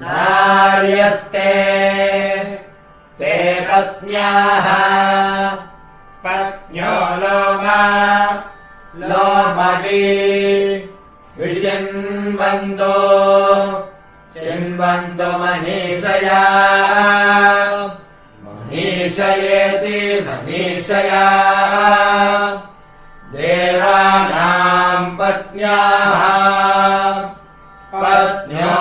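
Vedic recitation: a voice chanting Sanskrit verses on a near-steady pitch, in short phrases with brief pauses between them.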